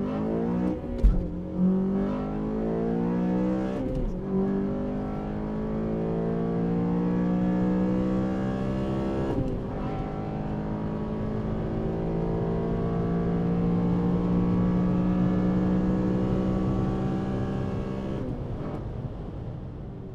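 A 2011 Honda Civic Si's 2.0-litre K20 four-cylinder with a cold air intake, heard from inside the cabin under full-throttle acceleration. The engine pitch climbs in each gear and drops at upshifts about a second, four seconds and nine and a half seconds in, then rises slowly in a long uphill pull before the revs fall off near the end as the throttle lifts.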